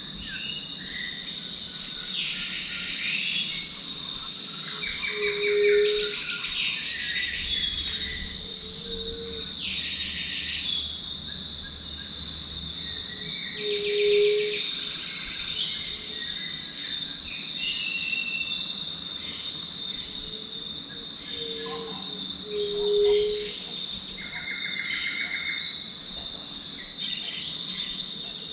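Tropical forest soundscape: a steady high-pitched insect chorus with many birds chirping and trilling over it. A low, short hooting call comes about five times and makes the loudest moments.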